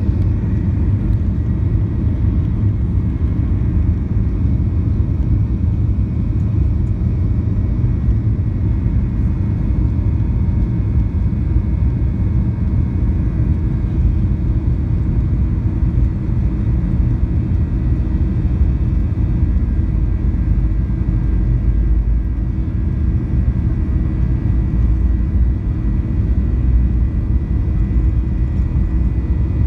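Steady low rumble of a jet airliner's engines and airframe, heard from inside the passenger cabin while the plane rolls on the ground before takeoff.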